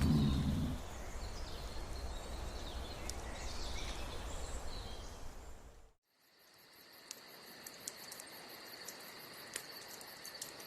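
Outdoor ambience of steady noise, then after a brief cut to silence a steady high insect drone, like crickets, with scattered sharp clicks.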